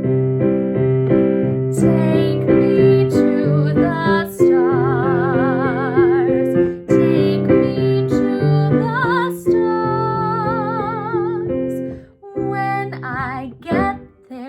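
Piano chords played steadily, with a woman singing long held notes with vibrato over them twice.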